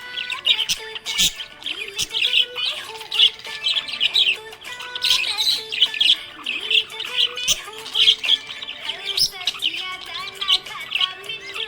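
Budgerigar chirping and chattering in rapid, continuous bursts of high chirps, with music playing underneath.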